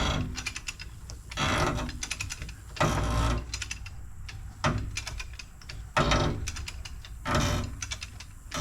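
Hand come-along winch being worked stroke by stroke: about six short bursts of rapid ratchet-pawl clicking, one roughly every second and a half.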